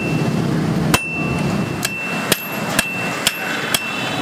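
Hand hammer forging a red-hot steel knife blade, made from bearing steel, on an anvil: about six sharp blows that come closer together toward the end, with the anvil ringing on a high, steady note between them.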